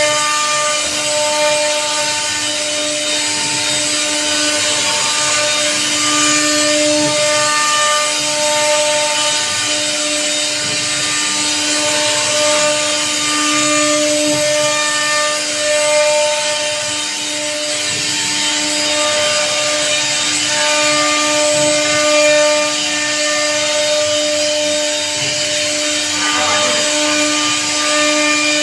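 A 1325 CNC router carving a teak door panel: the spindle runs with a steady whine, and the bit's cut through the wood adds a continuous rasping hiss.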